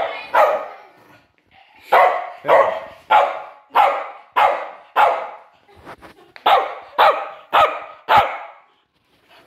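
Young Patterdale–Fell–Lakeland terrier cross barking over and over: about ten sharp single barks a little over half a second apart, broken by two short pauses.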